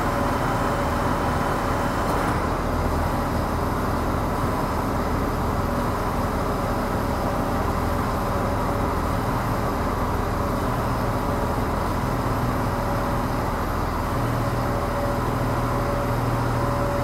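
Tractor engine idling steadily, a continuous low hum with a few steady tones through it. A fainter high hiss eases off about two seconds in.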